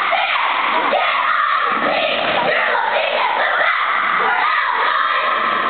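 A cheerleading squad of young girls shouting a cheer together, over spectators yelling and cheering.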